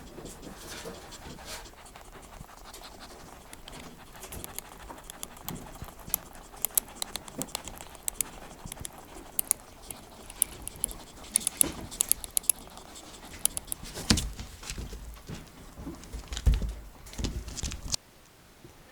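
A Soviet Chinchilla rabbit softly grinding its teeth, heard as a quick, irregular run of small clicks and creaks. This is the tooth purring of a contented rabbit. A few dull low thumps come near the end.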